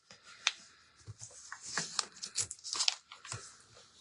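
A calendar page being creased and folded by hand, the paper crinkling and crackling in a run of sharp little clicks and rustles that grow thicker after about a second and a half.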